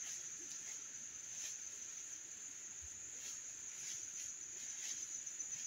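Steady high-pitched drone of insects, with a few faint, brief, indistinct sounds scattered through it.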